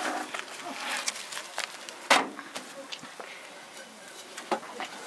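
Stack of paper-thin, dry Tiri flatbread rustling and crackling as hands handle it on a metal tray, in a series of short crinkles, the loudest about two seconds in.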